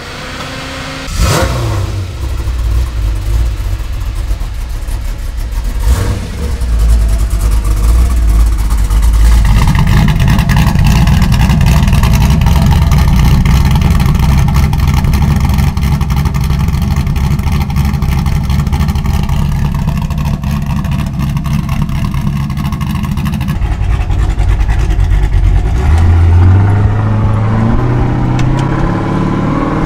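Cammed 6.0-litre LS V8 (LQ9) in a Chevy C10 firing up about a second in and settling into the choppy, lopey idle of its big Sloppy Stage 3 cam, loud through open exhaust cutouts. Near the end, heard from inside the cab, the engine revs up with rising pitch as the truck accelerates.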